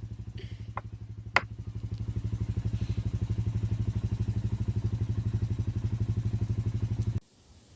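Honda ATV engine running with an even, rapid firing pulse, a sharp click about a second and a half in, getting louder about two seconds in, then cutting off abruptly near the end.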